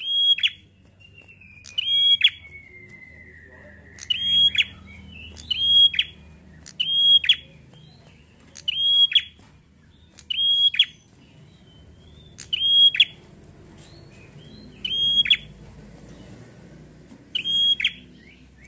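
Caged ashy tailorbird calling: loud, sharp notes, each falling steeply in pitch, repeated about every second and a half.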